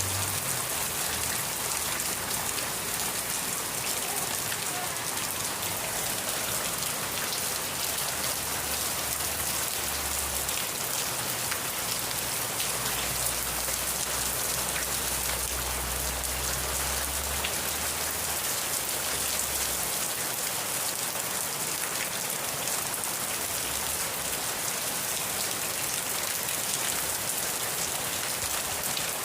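Steady rain falling and pattering on a surface, an even dense hiss, with a faint low rumble underneath partway through.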